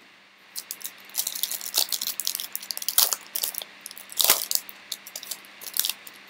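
Foil trading-card pack wrapper crinkling and tearing as gloved hands rip it open and pull out the cards. The crackling is irregular, with one sharper crack a little past four seconds in.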